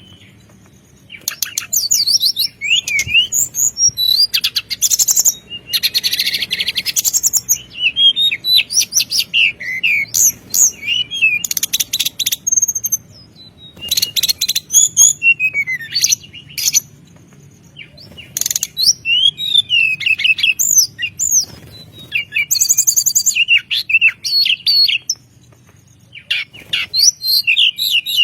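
Small songbirds singing a fast, varied string of chirps, whistled slurs and rapid buzzy trills, with short pauses now and then. It is the kind of masteran song recording used to train caged songbirds.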